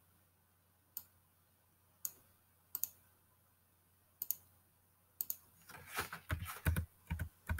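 Faint computer mouse clicks, single ones spaced about a second apart, one of them a quick double click. In the last two seconds comes a quicker, busier run of clicks and taps.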